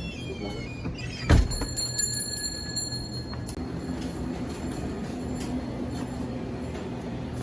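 Vehicle driving with a steady low road-and-engine rumble, interrupted about a second in by a single sharp thump followed briefly by a faint high ringing tone.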